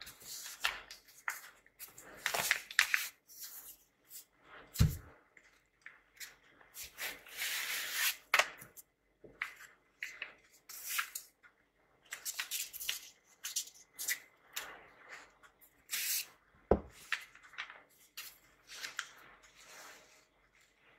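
Kraft-paper envelopes being handled: repeated rustling and crinkling of stiff paper. There are two dull thumps as a packet is set down on the table, one about five seconds in and another later on.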